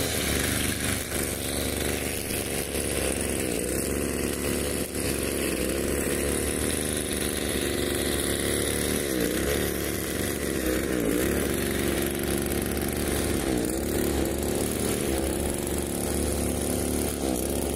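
Petrol string trimmer (brushcutter) engine running at working speed while cutting. Its pitch dips briefly and picks back up several times.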